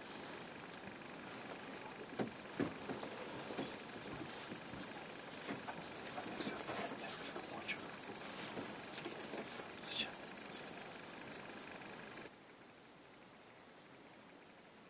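A cricket-like insect singing a high, fast, evenly pulsed trill. It swells in about two seconds in and cuts off abruptly a little before twelve seconds.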